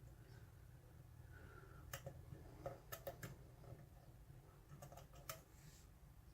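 Faint, sparse clicks and ticks of a lock pick probing the pins of a pin-tumbler lock held under light tension, a handful spread over a few seconds.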